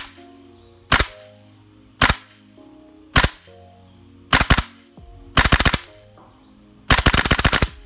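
WE MSK gas blowback airsoft rifle fitted with a Poseidon super recoil spring, its bolt blowing back with each shot: single shots about a second apart, then a quick pair, a short rapid string, and a longer rapid string near the end.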